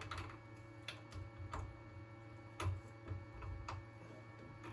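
Heavy-duty metal circular connectors being fitted back onto a CNC spindle by hand: a run of irregular light clicks and taps, over a steady low hum.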